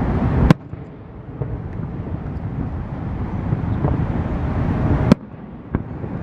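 Fireworks display: a low, building rumble of booms, with two sharp cracks, about half a second in and about five seconds in.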